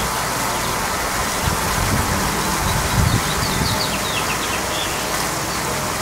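Swarm of honeybees buzzing steadily around the beekeepers, with a few low bumps and a short run of high chirps a little past halfway.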